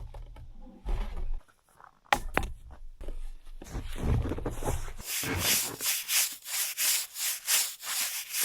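Snow being swept off roof tiles with a brush, in quick scraping strokes of about three a second that start about five seconds in, after a few scuffs and thumps of movement on the roof.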